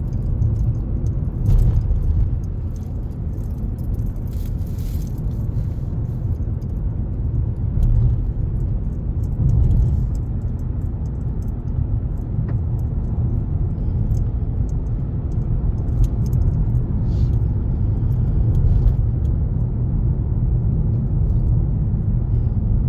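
Steady low road rumble of a car driving, heard from inside the cabin, with faint light rattles and ticks here and there.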